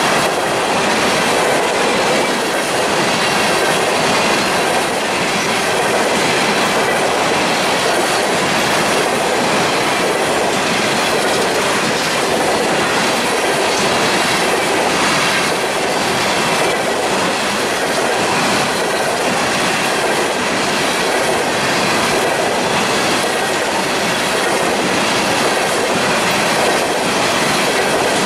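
Freight train cars rolling past close by: a steady, loud rumble of steel wheels on rail, with repeated clicks as the wheels cross rail joints.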